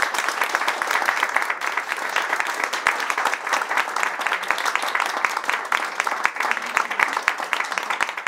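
Small audience applauding, a dense, steady patter of many hands clapping.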